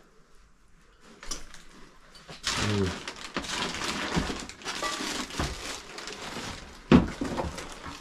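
Rustling and crunching among clutter and plastic bags, with scattered clicks and one sharp knock about seven seconds in.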